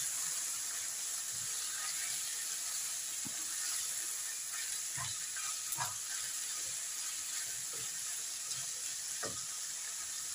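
Chicken and onions sizzling as they fry over a high flame in a non-stick frying pan, a steady hiss, with a few short scrapes and taps of a spatula as they are stirred.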